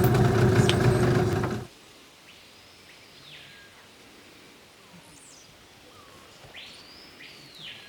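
A loud engine runs and cuts off abruptly about a second and a half in, leaving quiet outdoor background. Over that background, a bird gives two calls, each about a second long, rising, holding and falling.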